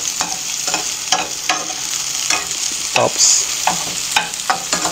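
Sliced onion, scallion and garlic sizzling in hot oil as they are sautéed, with a steady hiss, while a metal spoon stirs them, scraping and tapping against the pan every so often.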